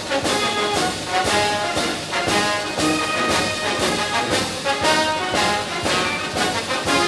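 Instrumental background music led by brass, with a steady beat.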